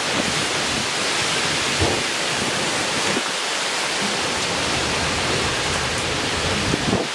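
Heavy rain pouring steadily in a thunderstorm, with gusty wind rumbling low on the microphone.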